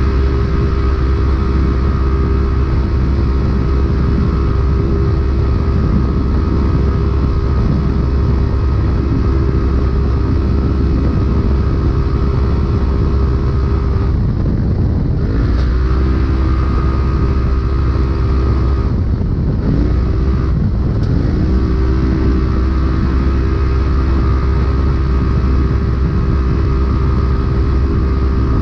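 Polaris RZR UTV engine running hard at high, steady revs under race load, heard from inside the cab over a constant low rumble. Twice, about halfway through and again a few seconds later, the revs drop briefly and climb back up as the throttle is lifted and reapplied.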